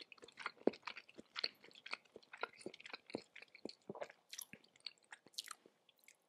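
Close-miked chewing of raw tuna sashimi: a run of soft, wet mouth clicks and smacks that thins out near the end.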